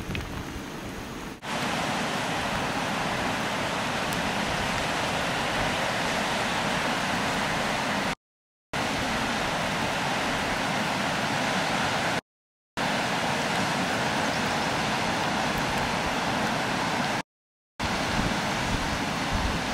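Steady rushing of a flooded river, a constant even roar of water, preceded in the first second or so by wind buffeting the microphone. The sound cuts out to dead silence three times for about half a second.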